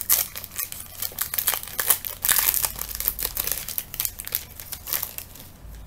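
Crinkling of a football trading card pack's wrapper being opened by hand, a dense run of crackles that dies down near the end.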